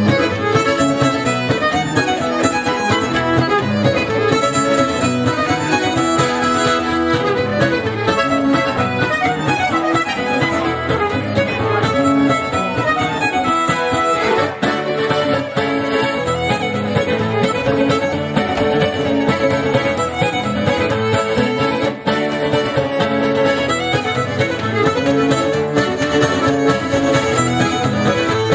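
Live acoustic folk trio playing a Finnish polka on fiddle, chromatic button accordion and cittern. The fiddle carries the tune over the accordion and the strummed cittern, without a break.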